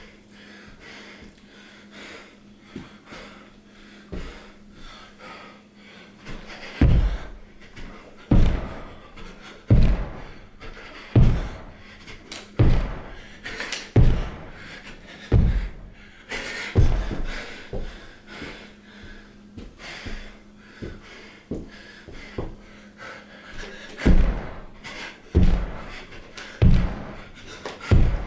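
Repeated heavy thuds, about one every second and a half, in a long run and then a shorter one after a pause.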